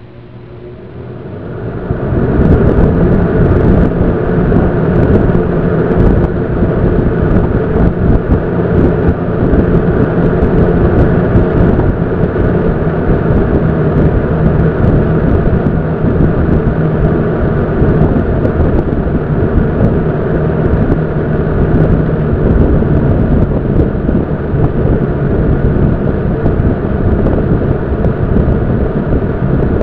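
Air King 9723C box fan with a 2.2 amp motor starting up, its blades spinning up over the first two seconds, then running steadily with a loud rush of air and a low rumble.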